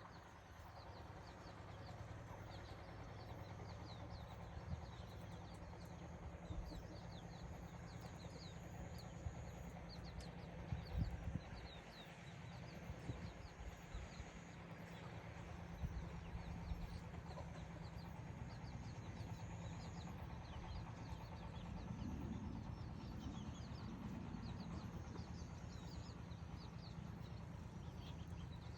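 Steady low putter of a two-wheeled power tiller's engine running, with small birds chirping and twittering over it.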